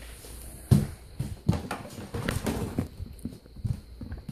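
Irregular thumps and rustles close to the microphone, the sound of a handheld phone being moved about and covered.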